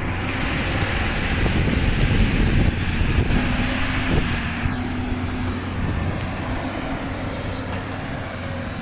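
Caterpillar 320D excavator's diesel engine running steadily with a low hum, with a faint steady whine over it for a few seconds near the middle.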